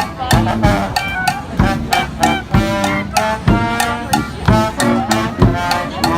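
Street brass band playing: horns carry the tune over a steady drum beat of about two hits a second.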